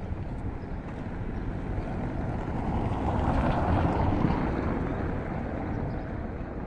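A car passing close by on a cobblestone street, the rumble of its tyres on the stones swelling to a peak about four seconds in and then fading.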